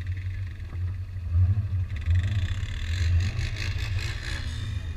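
Land Rover Discovery 2 engine droning low and swelling a few times as the truck is driven along an off-road trail. From about three seconds in, a rushing hiss of tyres through wet mud joins it for a second or so.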